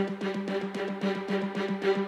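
Background music: a held electronic tone with a quick, even pulse, building gradually in loudness.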